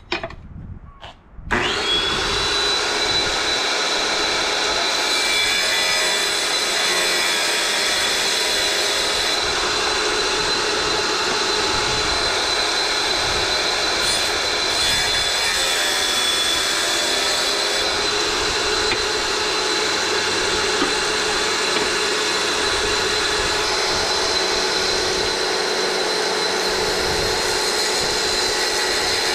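Sliding-table tile saw switched on about 1.5 s in, then running steadily with a constant high whine while a ceramic backsplash tile is pushed through the blade.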